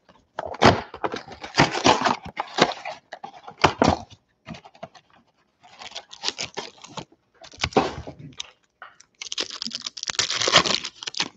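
Cardboard of a Panini Select trading-card mega box being torn open by hand, then the wrapped card packs inside handled and rustled, in short bursts with pauses. Near the end comes a longer stretch of crinkling as a pack wrapper is torn open.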